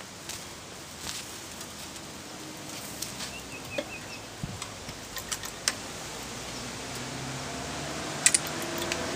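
Scattered metallic clicks and clinks from hands working the controls of a Sundial stationary engine as it is readied to start, the sharpest near the end; a low hum begins to build in the last second or two.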